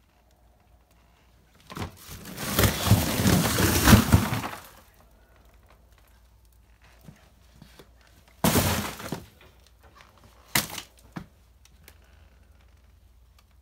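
Cardboard boxes of canned food being shifted by hand, cans clattering and knocking together with cardboard scraping. A long burst of about three seconds, a shorter one later, then two sharp knocks.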